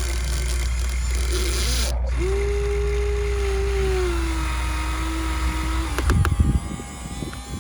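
Small electric motor of a radio-controlled excavator whining steadily for a few seconds over a low hum, its pitch dropping slightly partway through, followed by a brief clatter near the end.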